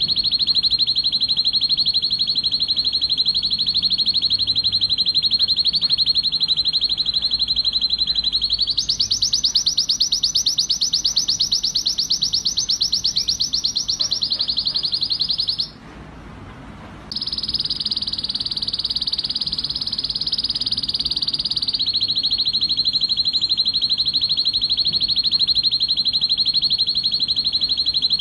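Male domestic canary singing an excited song of continuous rapid trills. About a third of the way in it switches to a higher, faster trill, breaks off for about a second and a half near the middle, then goes on in more trills, dropping back to a lower rolling trill. This is the breeding-condition song used to stimulate canaries to mate.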